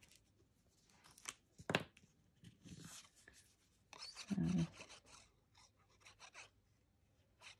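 Faint handling of cardstock on a craft desk: two sharp taps a second or so in, then paper rustling and the soft rubbing and dabbing of a liquid glue bottle's tip applicator on a strip of card, with a spoken "so" midway.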